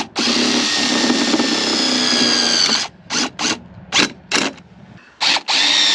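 Cordless drill driving a bolt through a bracket into a grain bin's corrugated steel wall: a run of about three seconds with its whine dropping slightly under load, four short trigger bursts, then another long run near the end.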